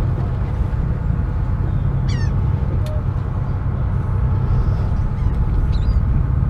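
A gull gives a short falling cry about two seconds in and another near the end, over a steady low rumble.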